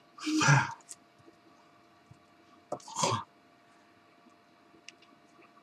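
A man's two short, breathy vocal sounds, like huffs or throat clearing without words: one about half a second in, a second around three seconds in.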